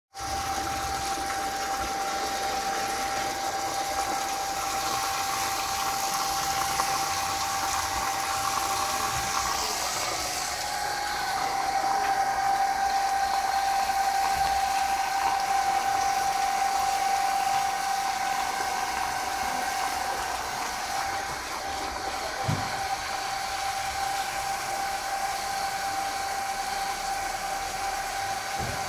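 Water gushing steadily from the delivery pipe of a running Kirloskar Neo 1 HP submersible borewell pump and splashing onto soil, with a steady whine over the rush of water.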